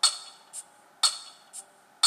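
The song's backing-track beat playing alone between sung lines: crisp percussion hits about twice a second, with stronger and lighter hits alternating.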